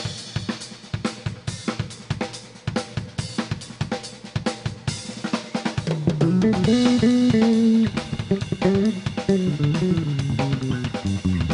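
A live band plays an instrumental passage in a loud rock arrangement. The drum kit comes in hard after a short pause, with kick, snare and cymbals. About six seconds in, a sustained melody line joins over the drums, stepping up and down between notes.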